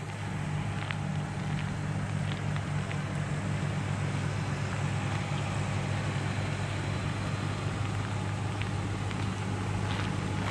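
2008 Ford F-150 FX2 Sport's V8 engine idling, a steady, even low rumble, with a few faint light ticks over it.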